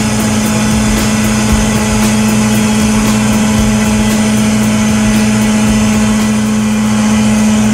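SmashTruck trash-compacting truck running steadily with a constant droning hum while its spiked drum spins down in a dumpster, crushing trash.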